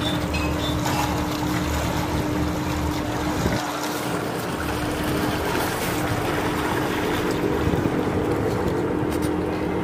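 Boat engine running at a steady drone, with wind and water noise over it.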